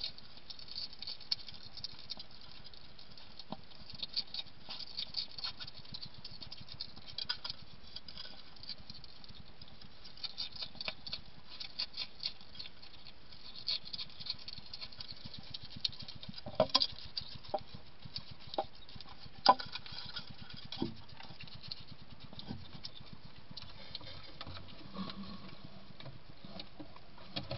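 European hedgehog eating dry kitten biscuits from a ceramic dish: quick irregular crunching and chomping clicks, with a few louder sharp clicks about two-thirds of the way in. The clicks thin out near the end.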